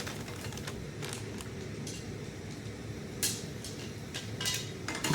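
Steel blacksmith fire tongs clinking and clicking as they are handled, metal knocking on metal several times, the sharpest clink a little past halfway and a quick cluster near the end. A steady low hum runs underneath.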